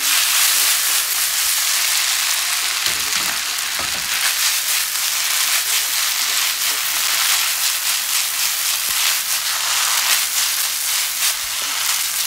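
Yakisoba (noodles, cabbage and pork) sizzling in a non-stick frying pan as it is stir-fried: a steady, dense hiss, loudest in the first couple of seconds, with small clicks and clatters from the stirring.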